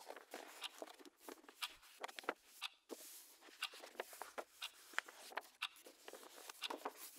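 Paper rustling and books being handled on a wooden shelf: many short, irregular crackles and light knocks as pages and volumes are shifted and leafed through.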